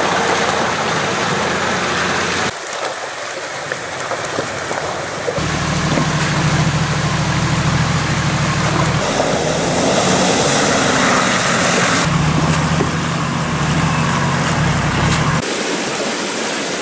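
Off-road 4x4 SUVs with their engines running as they crawl through a shallow, rocky mountain stream, over the constant rush of the water. The sound changes abruptly several times as the clips cut from one vehicle to the next.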